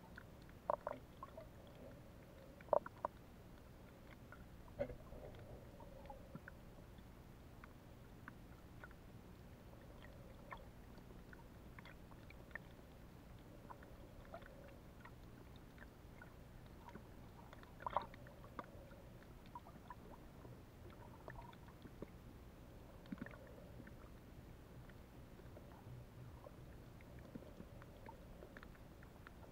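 Faint underwater ambience picked up by a submerged camera: a steady low muffled rumble with scattered small clicks and pops, a few of them louder.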